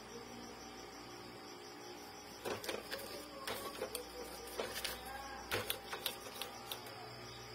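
Hands handling the plastic parts of an opened Epson L3110 inkjet printer: after a quiet start, a run of irregular light plastic clicks and knocks, with cloth rustling as a rag is picked up near the end.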